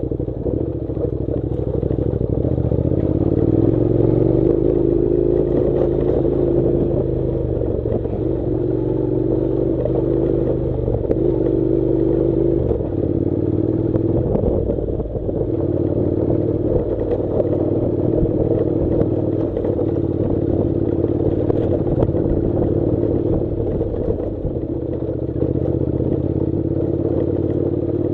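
Honda NC700's parallel-twin engine running at low revs while the motorcycle rides a rocky gravel track. Its pitch rises and falls a little with the throttle, and scattered knocks and clatter come from stones under the tyres and the rattling bike.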